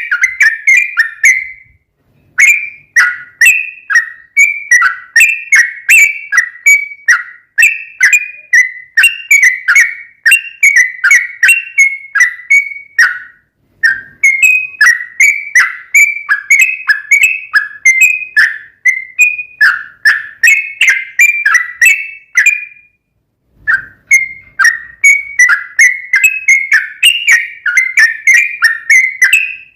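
Yellow-vented bulbul (trucukan) singing its long 'ropel' song. Long runs of quick, bubbling chirped notes are broken by short pauses about every ten seconds.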